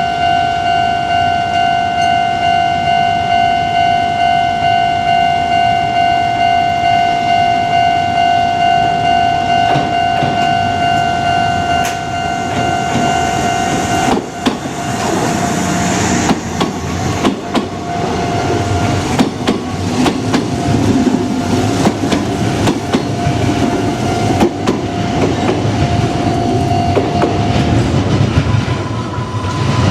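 Japanese level-crossing warning bell ringing in a steady, rapidly repeating electronic ding. About halfway through, a Kintetsu train runs over the crossing, its wheels clacking over the rail joints as it passes.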